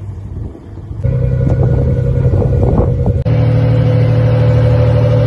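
Fishing boat's engine running with a loud, steady drone that comes in about a second in, after a short stretch of water and wind noise.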